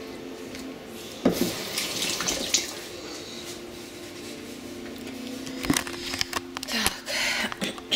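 Kitchen tap running water into a sink, loudest a second or two in, with a few sharp clinks near the end.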